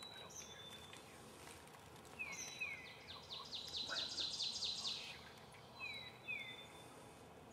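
Songbirds singing. A high whistled phrase ending in two down-slurred notes repeats about every four seconds. A fast high trill lasting about two seconds in the middle is the loudest sound.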